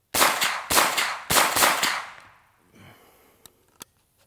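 Wilson Combat AR9-G 9mm carbine firing a quick string of semi-automatic shots over about two seconds, the echo trailing off. It is followed by two faint sharp clicks as the gun stops on what looks like another light primer strike.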